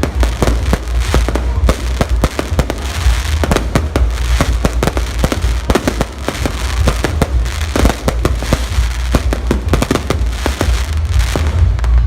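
Fireworks display going off: rapid, overlapping bangs and crackling bursts without a break, with a heavy low rumble underneath.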